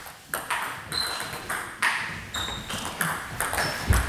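Table tennis rally: the ball clicking off the bats and the table at a quick, uneven pace, each click echoing in the hall. A few short high squeaks, typical of shoes on the hall floor, and a heavy footfall near the end.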